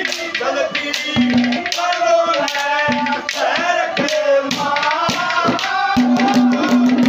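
Live Haryanvi ragni folk music: a harmonium melody over steady hand-drum beats with rattling percussion, and a sustained low note sounding on and off.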